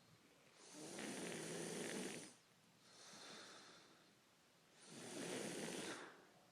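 A sleeping man snoring: two loud snores about four seconds apart, with a softer breath out between them.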